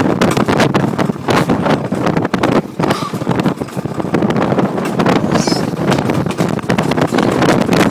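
Alpine coaster sled running fast down its steel rail, its wheels rumbling and rattling continuously, with wind buffeting the microphone.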